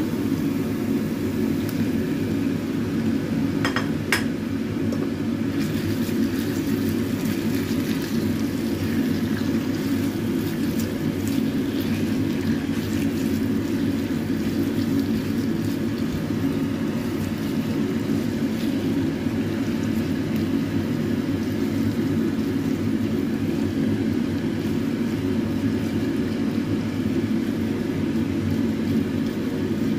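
Raw chicken pieces frying and being stirred with a spatula in a non-stick pan of spice paste, with a few clatters about four seconds in and then a steady sizzle. Under it all runs an unchanging low hum, the loudest sound throughout.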